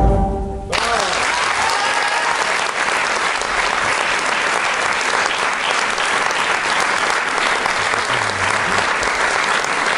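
The last notes of the recorded dance music die away, and within a second an audience breaks into applause that starts suddenly and continues steadily.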